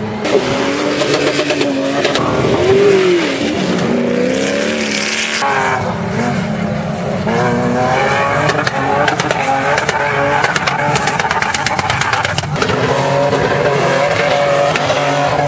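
Toyota Land Cruiser engines revving hard and unevenly, the pitch rising and falling as the vehicles slide sideways through soft sand on dunes, with voices over the top.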